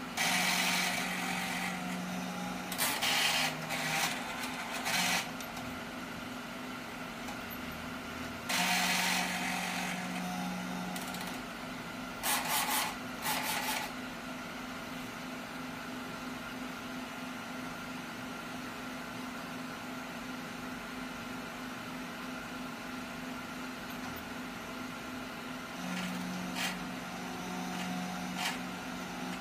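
Large-format inkjet printer running a print head cleaning cycle: the ink pump and capping-station motors whir in several bursts of a few seconds each over the machine's steady hum.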